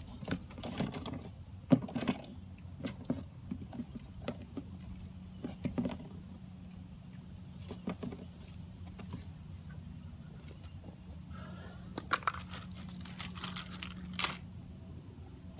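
Scattered light clicks, knocks and rattles of plastic tiller parts and packaging being handled, with a cluster of them near the end, over a faint steady low hum.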